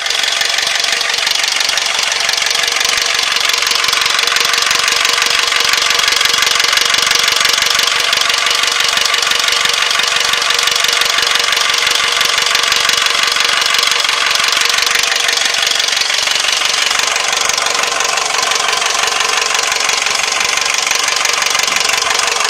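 Toyota 2AZ-FE 2.4-litre four-cylinder engine running steadily with a fast, even knock from the cylinder head, which the owner takes for the camshaft knocking because of a faulty VVT-i coupling (cam phaser).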